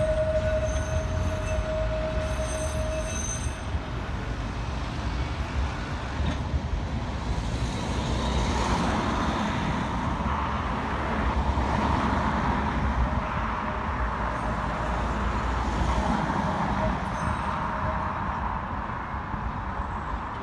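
Blackpool Balloon double-deck heritage tram pulling away along the tramway: a steady whine from the wheels or motors for the first three or four seconds, then an even rumble of it running on the rails that eases a little as it draws away.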